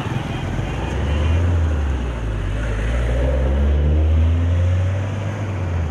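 An engine running with a deep steady hum that builds about a second in and holds, over a wash of outdoor noise.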